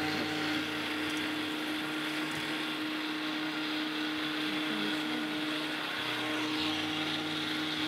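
Countertop blender running steadily at full speed, blending cooked yam with water and lemon juice into a liquid: an even motor drone with a constant low tone.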